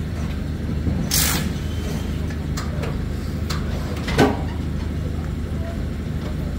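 A large engine running steadily with a low drone, with a short hiss about a second in and a single clank of metal just after four seconds.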